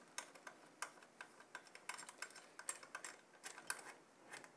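Faint, irregular clicks and ticks, a few a second, as the metal caps on the Noctua cooler's mounting hardware are screwed down by hand onto the threaded standoffs over the curved metal retention brackets.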